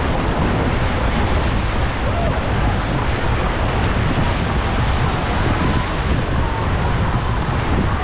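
Whitewater rapid rushing around an inflatable raft, a steady loud roar of churning river water, with wind rumbling on the microphone.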